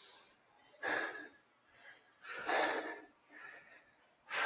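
A person breathing hard, a few heavy breaths about a second and a half apart, catching their breath after exertion.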